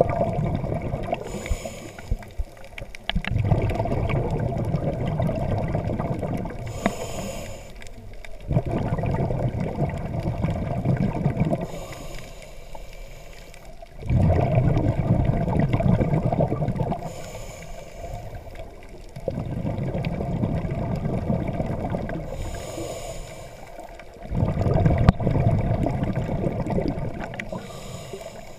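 Scuba diver breathing through a regulator underwater: a short hiss on each inhale, then a longer, louder rush of exhaust bubbles on the exhale. It repeats at about one breath every five seconds, six breaths in all.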